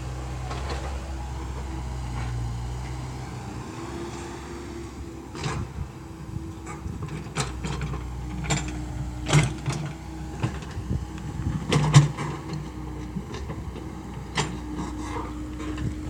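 Komatsu PC70-8 hydraulic excavator working: its engine runs steadily with a held hum. From about five seconds in there is a series of sharp knocks and clanks, loudest about twelve seconds in.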